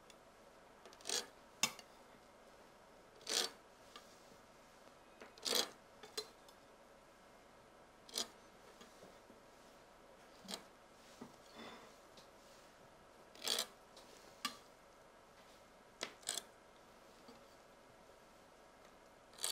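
A knife scraping on a plate as frozen cake balls are prised off one at a time and set on a wire rack: about a dozen short rasps and light knocks, spread out with quiet between.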